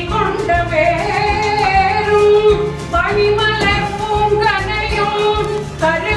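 Song with a female voice singing a held, bending melody over a steady bass beat.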